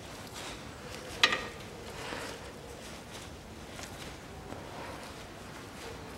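Faint handling noises of gloved hands and tools working around a car's front brake caliper, with one sharp metallic click about a second in.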